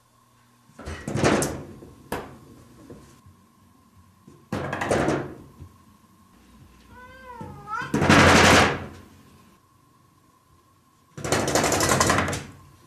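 A cat knocking on a door: four bursts of rapid knocking, each about a second long, with a single meow just before the third burst.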